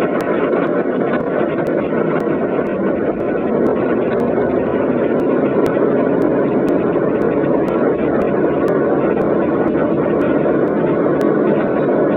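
A train running: a steady, even rumble heard through a flip phone's muffled microphone.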